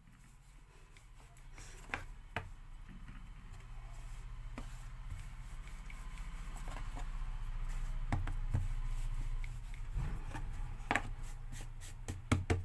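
Dough being pressed and rolled out on a plastic cutting board: soft rubbing and scraping, with scattered sharp knocks of a wooden rolling pin against the board, over a steady low hum.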